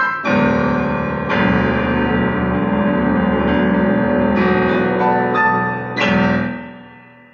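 Digital piano played with both hands: full chords struck and held, changing every second or two. The last chord, about six seconds in, rings on and fades away near the end.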